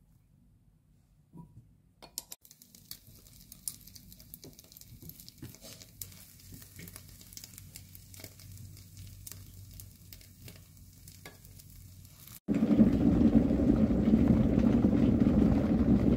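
Bread soaked in egg frying in butter in a nonstick pan, a faint sizzle with sharp clicks of wooden chopsticks against the pan. About twelve seconds in it gives way abruptly to a much louder, steady low rumble of an electric kettle heating water.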